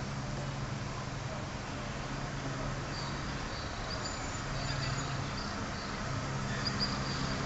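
Outdoor background ambience: a low hum that fades in and out, with faint, short, high chirps from about three seconds in.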